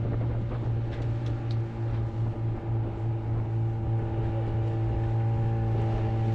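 Fishing boat's motor running at a steady speed, a constant low hum with no change in pitch.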